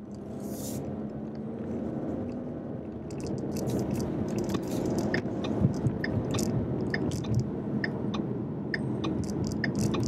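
2015 Ford Mustang EcoBoost's 2.3-litre turbocharged four-cylinder engine running, with tyre noise on a wet road, heard from inside the cabin. It grows louder as the car picks up speed, and scattered light ticks come in from about three seconds in.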